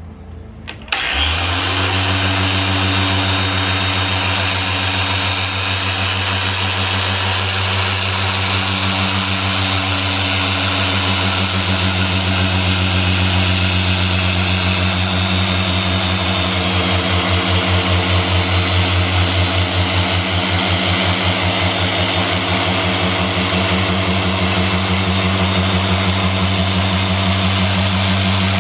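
Harbor Freight 6-inch dual-action variable-speed polisher switching on about a second in, then running steadily at its high speed setting: an electric motor hum with a whirring hiss as the spinning, oscillating foam pad buffs polish into car paint. There is a light pulsing in the hum around the middle.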